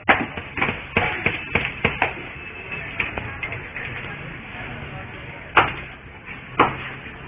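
Sharp taps and clacks: a quick irregular run of them in the first two seconds, then two louder knocks about a second apart near the end, with voices in the background.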